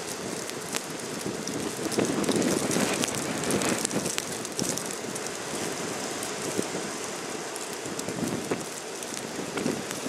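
Blizzard wind gusting across the microphone, with fine ticks of wind-driven snow striking the camera. The gusts are strongest in the first half.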